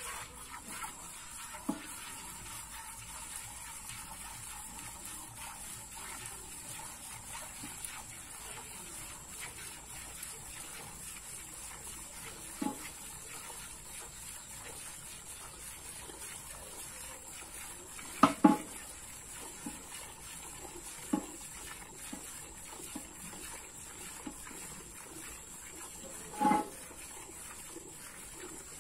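Milk squirting in steady streams into a metal pail as a cow is milked by hand, a soft continuous splashing. A few short, louder sounds break in, two close together past the middle and one near the end.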